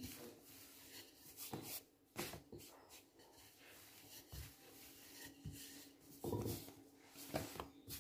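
Faint rubbing and a few soft knocks as hands turn a stack of thin pastry dough sheets and sprinkle flour on a countertop, the loudest knocks coming a little after the middle and near the end.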